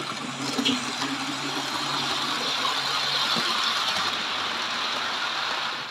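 Model steam locomotive and its coaches running past close by on the layout's track: a steady rolling rattle of wheels on rails that builds over the first couple of seconds.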